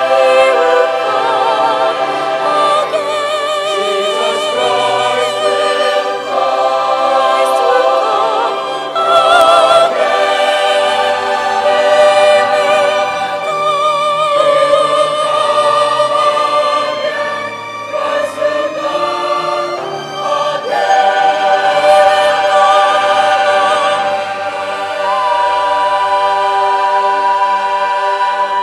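Mixed choir of men and women singing full-voiced with vibrato, over orchestral accompaniment, closing on a long held chord.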